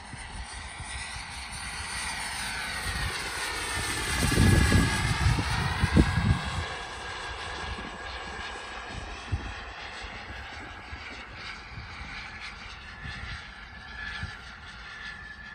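Jetcentral 90N model turbojet on a 3.5 m Fox glider making a pass: a jet whine and rush that grow to loudest about four to six seconds in, then fade as it flies away.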